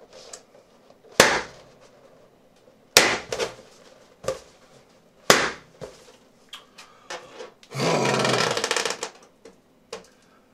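Red latex balloons bursting one after another as they are poked with a BBQ skewer: three loud sharp pops about two seconds apart, with smaller clicks between them. Near the end comes a loud rushing noise lasting about a second and a half.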